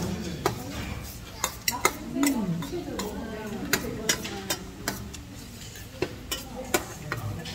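Metal chopsticks clicking against a dish while eating: a dozen or so sharp, irregular clicks.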